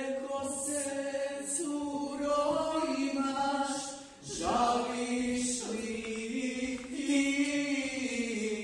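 Singing: a slow melody of long held notes that step up and down, with a brief break about four seconds in before it starts again on a rising note.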